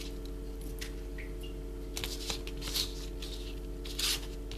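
Fingers scraping grated apple pieces across a paper plate: a few short papery scrapes, the loudest about two and four seconds in, over a steady low hum.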